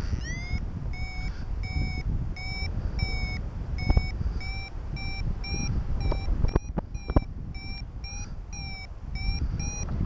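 Paraglider variometer beeping about twice a second: climb tones that signal the glider rising in a thermal. Wind noise rushes underneath, with a few sharp clicks around four and seven seconds in.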